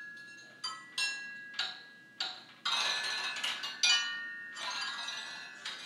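Metal parts from a stereo receiver being struck, one hit after another, roughly one to two a second. Each hit rings on in several clear bell-like tones, an eerie sound like a haunted carnival.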